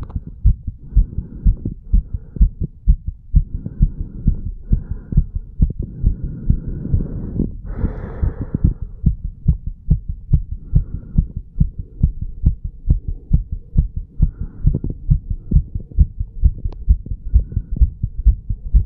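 A human heartbeat recorded at the chest: a quick, even run of low lub-dub thumps. About eight seconds in there is a brief hiss.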